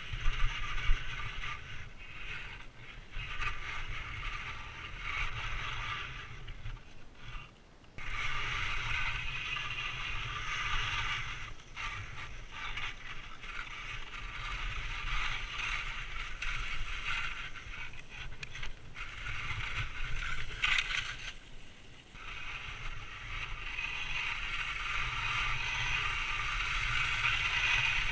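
Skis sliding and scraping over snow on a downhill run, a hissing scrape that rises and falls, with a low wind rumble on the microphone underneath.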